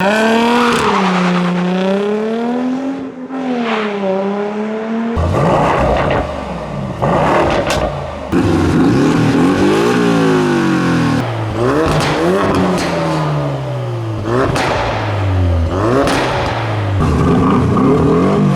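Performance car engines and exhausts in a string of short cuts: revving up and down and accelerating through the gears, the pitch climbing and then dropping at each shift.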